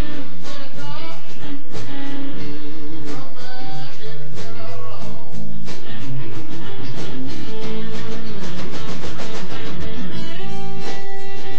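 Live blues band playing, led by a Telecaster electric guitar whose notes bend up and down over bass and drums. A single high note is held for about a second near the end.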